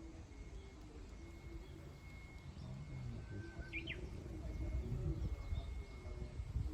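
Birds calling outdoors, with a thin high note coming and going and a short sweeping chirp about halfway through. A low rumble grows louder toward the end.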